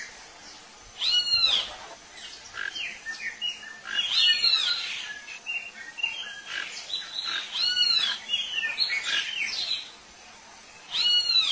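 Birds calling: a loud arched call repeated four times, about every three and a half seconds, among many shorter chirps and whistles.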